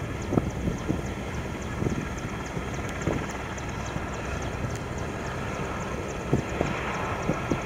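Airbus A320-family jet airliner on approach, its engines a steady distant noise, with wind buffeting the microphone in irregular low thumps.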